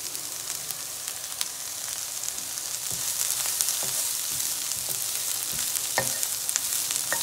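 Oil sizzling steadily in a non-stick wok as soya meat chunks, sliced onion and chopped spring onions sauté, with a wooden spatula scraping through the food and knocking on the pan a few times in the second half.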